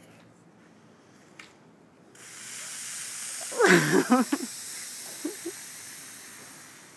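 Soda-and-Mentos geyser spraying out of a bottle through a geyser cap: a hiss of fizzing spray starts suddenly about two seconds in and slowly fades away. A loud, excited shout rises over the spray about a second and a half after it starts.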